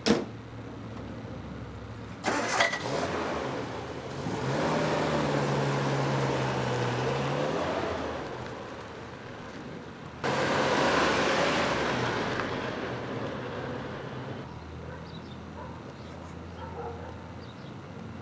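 MG Midget convertible's engine starting about two seconds in and running with a slightly rising note as the car pulls away. About ten seconds in a louder surge of engine and road noise cuts in and fades away.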